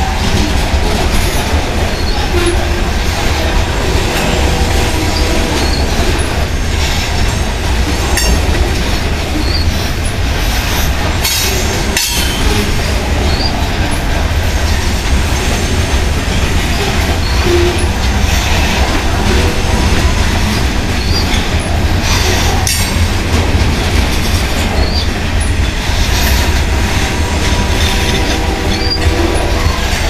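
Freight train of covered grain hopper cars rolling past close by: a steady, loud rumble of steel wheels on rail, with a few sharp clicks at rail joints and brief wheel squeals.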